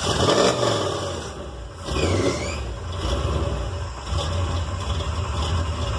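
Deliberately flooded, chokeless carbureted Chevy 468 big-block V8 catching with the throttle held open. It surges twice in the first couple of seconds, then settles into a steady run as it clears out the extra fuel.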